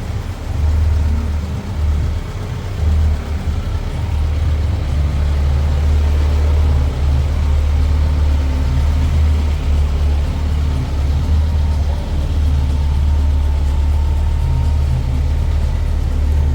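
A vehicle engine running steadily with a deep low rumble, uneven for the first few seconds and then even.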